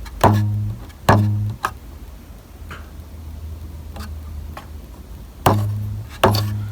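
New rubber drive belt on an upright vacuum cleaner's motor shaft being plucked to check its tension. It twangs a low note four times, twice near the start and twice near the end, each note dying away quickly, with a few light clicks between.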